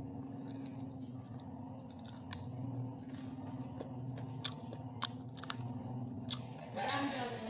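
Chewing and biting roast pig (lechon): scattered small crunches and clicks over a steady low hum, louder for a moment near the end.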